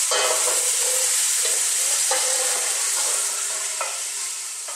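Browned beef and bacon sizzling hot from the pan, with several short scrapes and knocks as the meat is moved into a Dutch oven. The sizzle eases off near the end.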